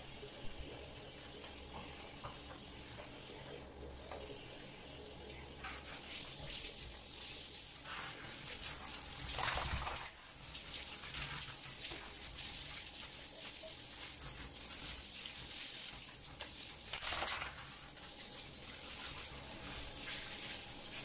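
Handheld shower head spraying water onto a soapy dog's head and fur, a steady hiss of running water that starts about six seconds in and swells and changes as the spray moves over the dog.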